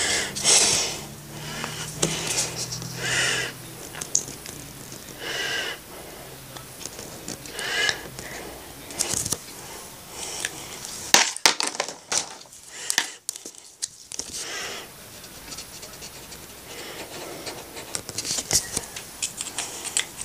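Short scratching strokes of a marker on paper and breaths close to the microphone, with a run of sharp clicks about halfway through.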